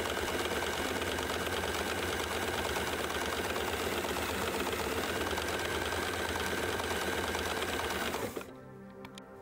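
Electric sewing machine motor running at full speed with a steady whir, stopping about eight seconds in. Soft background music follows.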